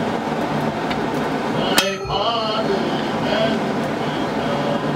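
One blacksmith's hammer blow on the pike head at the anvil, about two seconds in, followed by a short fading metallic ring. Steady background noise runs underneath.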